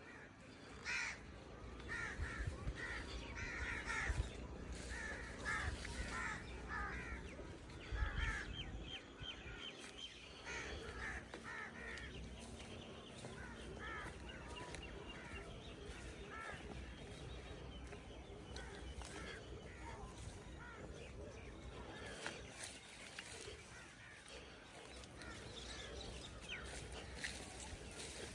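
Birds calling outdoors in a quick series of short, harsh calls. The calls come thickly in the first twelve seconds or so and thin out after that, over a low rumble of wind on the microphone.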